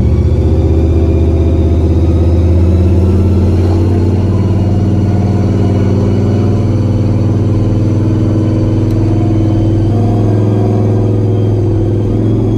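Supercharged big-block Chevy V8 running on newly installed Terminator X electronic fuel injection, a loud, steady deep rumble with small rises and falls in pitch and a slight shift about ten seconds in.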